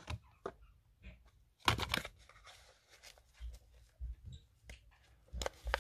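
Plastic craft packaging crinkling and objects being handled on a table: a burst of crackles about two seconds in, then a few soft knocks as things are set down near the end.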